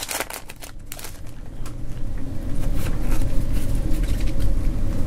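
Foil booster-pack wrapper crinkling and crackling as the next pack is handled and opened. From about two seconds in, a low rumble grows louder and becomes the loudest sound.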